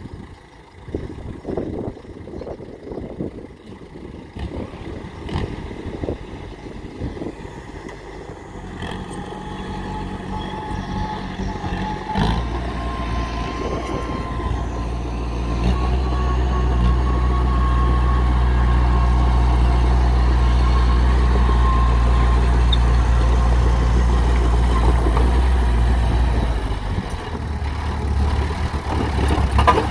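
Small Komatsu D21P crawler dozer's diesel engine running as the machine travels, with scattered knocks and rattles at first. It grows louder about a third of the way in, holds a loud steady drone under load, then eases off near the end.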